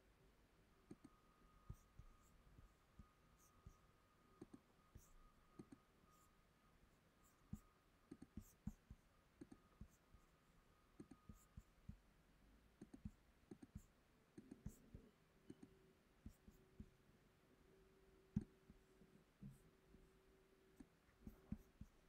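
Near silence: faint room tone with scattered, irregular small clicks and taps, plus a faint steady hum.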